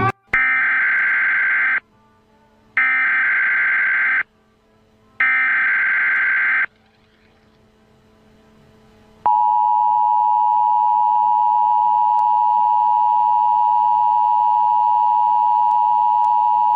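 Emergency Alert System alert opening: three identical SAME header data bursts, each about a second and a half long with short gaps between. After a pause of nearly three seconds comes the steady two-tone attention signal, 853 and 960 Hz sounding together.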